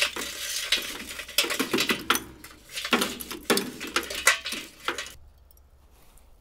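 Unlit lump charcoal clattering out of a metal chimney starter onto the hot coals in a cheap offset smoker's steel firebox. A dense run of clinks and rattles stops about five seconds in.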